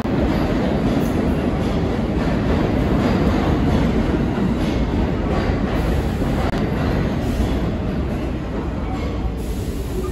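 New York City Subway train running along the platform, a steady loud rumble of wheels on rail and traction motors. It grows quieter near the end as the train slows into the station.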